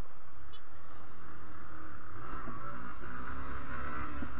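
Motorcycle engine running while riding at about 40 km/h, with wind rushing over the microphone; the engine note climbs about halfway in as the rider accelerates.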